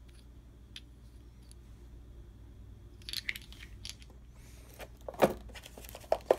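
Board-game pieces being handled: a couple of faint clicks, then from about halfway a plastic bag crinkling and sharp clacks of small plastic pieces, the loudest about five seconds in.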